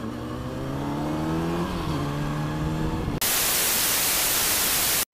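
Kawasaki ZX-6R 636 inline-four engine accelerating, rising in pitch with one gear change about two seconds in. About three seconds in it gives way to a loud burst of TV-static hiss that stops abruptly.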